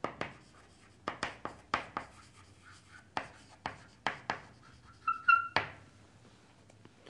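Chalk writing on a chalkboard: a quick run of sharp taps and short scraping strokes, with a brief squeak of the chalk about five seconds in.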